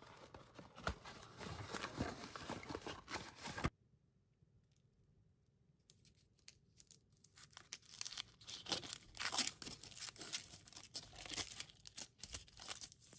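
Cardboard candy box being torn open, a dense crackling for nearly four seconds. After a short pause, a foil wrapper crinkles in many short bursts as it is peeled off a chocolate egg.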